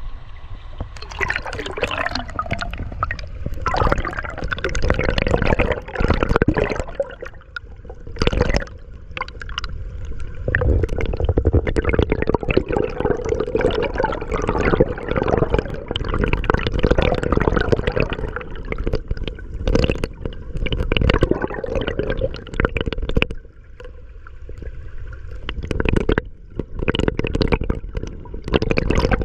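Water gurgling and bubbling around a camera held underwater, with irregular sloshing surges and crackles and a low rumble.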